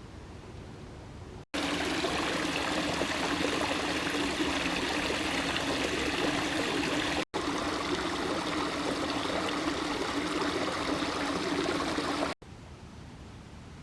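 Stream water rushing steadily over a step in the streambed. It cuts in abruptly about a second and a half in, breaks off for an instant about halfway, then stops abruptly near the end, leaving quieter outdoor ambience.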